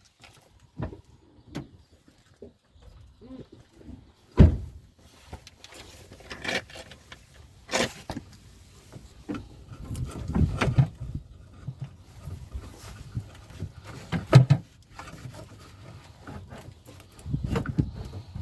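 Irregular clicks, knocks and scraping of hand work on plastic parts and hoses around the EVAP canister, with a sharp knock about four seconds in and another near the middle.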